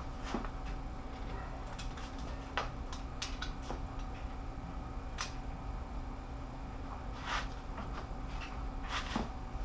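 Scattered sharp metallic clicks and clinks from a long breaker bar and socket while torque-to-yield cylinder head bolts are turned another 90 degrees, over a steady background hum.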